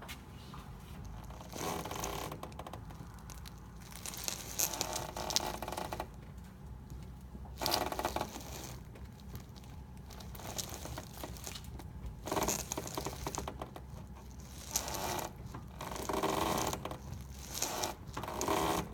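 2011 Chevy Malibu steering creaking like a squeaky wooden door as the wheel is turned back and forth, in about seven separate creaks of half a second to two seconds each. The owner suspects the inner tie rod.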